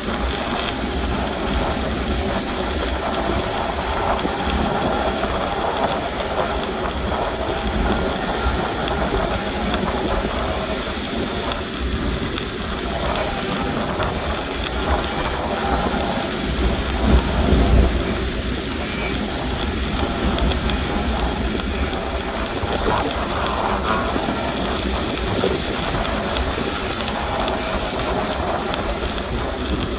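Stick (SMAW) arc welding: the electrode's arc crackling steadily, with a low hum underneath and a brief louder swell about halfway through.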